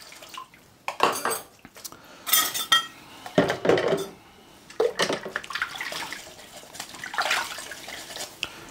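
Washing up by hand: dishes and cutlery clinking and knocking against each other and the sink in washing-up water, with light splashing, in irregular bursts.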